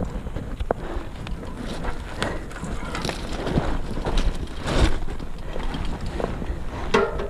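Mountain bike descending a loose, dusty dirt trail: tyres rolling over the dirt, the bike clattering over bumps, and wind rushing over the microphone. A brief pitched sound comes just before the end.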